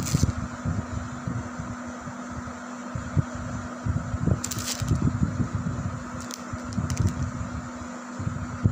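Plastic snack packet crinkling in a few short bursts as a puppy mouths and paws at it. Underneath are low rumbling thumps and a steady fan hum.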